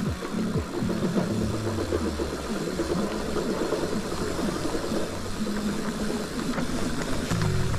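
Electric mountain bike rolling fast down a rough dirt trail: tyre noise and jolting rattles over bumps, with a low hum that comes and goes.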